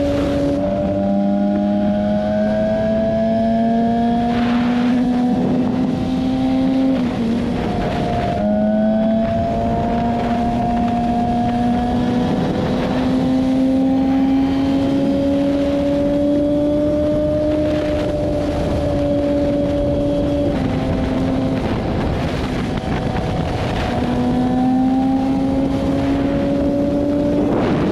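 BMW S1000RR's inline-four engine running at cruising speed from the rider's seat, its pitch climbing slowly under throttle. It drops at a gear change about half a second in, with a few brief throttle lifts later on. Wind rushes over the microphone throughout.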